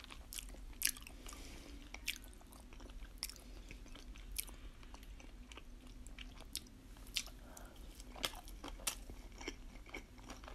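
Quiet chewing of a mouthful of sushi, with irregular sharp mouth clicks.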